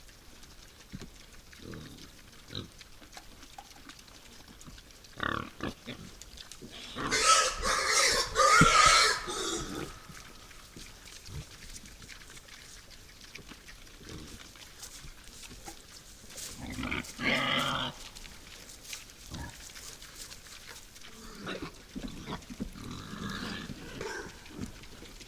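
Wild boar grunting and squealing at close range, with a loud squealing outburst about seven seconds in that lasts a few seconds and a shorter one around seventeen seconds, and quieter grunts and rustles between.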